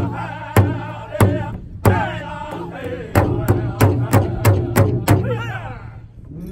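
A powwow drum group of men singing together around a large powwow drum, striking it in unison. The drumbeat is steady at first, then quickens to about three strokes a second a little past halfway. The singing ends on a falling note and the song stops near the end.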